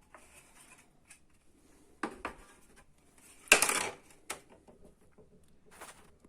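Hard plastic and metal parts of a washing machine door being handled: a few separate clicks and knocks, with one louder clatter about three and a half seconds in.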